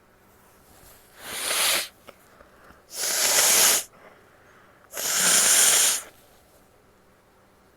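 A woman blowing her nose hard three times. Each blow is a noisy blast of about a second, spaced roughly two seconds apart.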